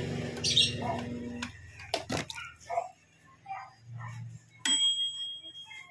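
Microwave oven running on test after a magnetron heater replacement: a steady mains hum that stops about a second and a half in. A couple of clicks follow, then near the end a single bell-like ding that rings on and fades.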